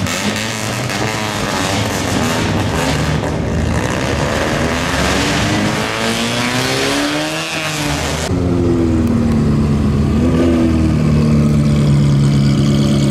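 Old Japanese sedans' engines revving as they pull away, pitch rising and falling. After a cut about eight seconds in, a Ferrari 360 Modena's V8 runs steadily up close, with one short rev blip.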